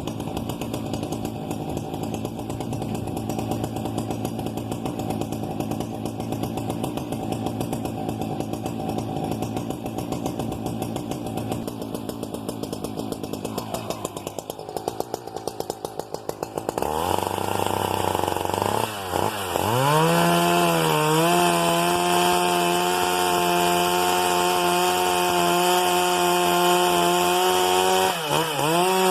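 Husqvarna 395XP two-stroke chainsaw idling with an uneven pulse for about 17 s, then revved up to high speed and held there. The pitch dips and recovers briefly twice near the end, as if the saw is loaded for a moment.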